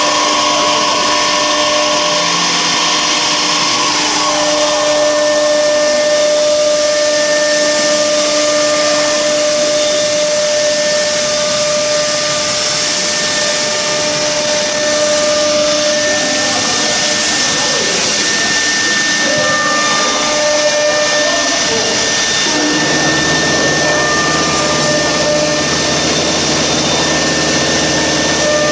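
CNC router's spindle-driven circular saw blade running and cutting along a panel: a steady machine whine of several tones over a cutting hiss. A deeper rumble joins about 23 seconds in.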